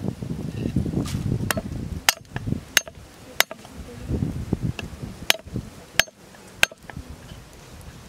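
Meat cleaver chopping on a round wooden chopping board: a series of sharp, uneven knocks, some hard and some light.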